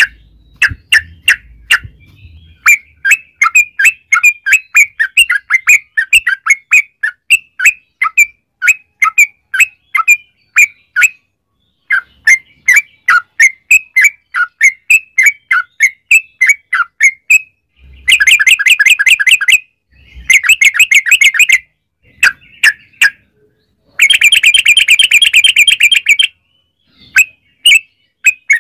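Yellow-vented bulbul (trucukan) singing: a long, quick run of short bubbly notes. Three loud, fast rolling trills come in the second half, the 'ropel' phrases used in a lure recording to set other trucuk birds singing.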